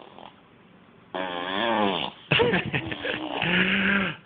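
Playful wordless vocal noises with buzzing lip trills, in two stretches after a quiet first second.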